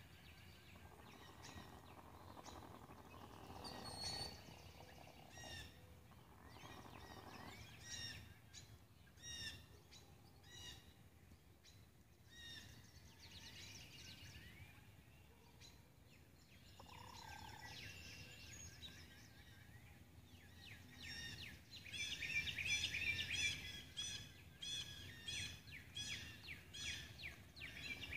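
Small wild birds chirping and trilling in short repeated phrases, much busier and louder in the last six seconds, over a faint low background rumble.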